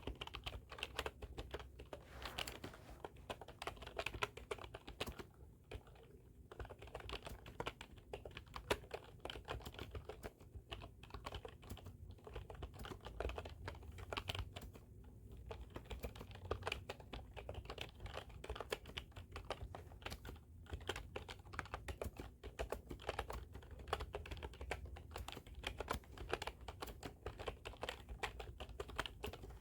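Computer keyboard being typed on steadily: a fast, uneven stream of key clicks, with a few short pauses between bursts.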